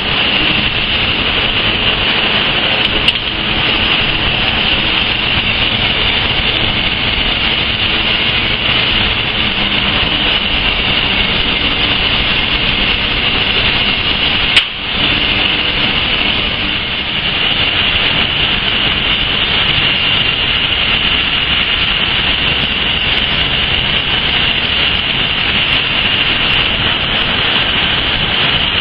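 Steady loud roar of a furnace and its surrounding machinery while molten metal pours, with a steady high hiss over it. A sharp click and a brief drop in level come about halfway through.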